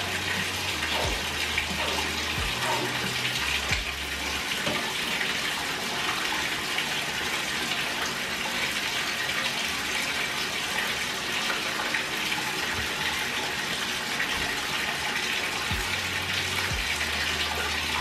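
Water running steadily from a tap into a bathtub while a dog is bathed.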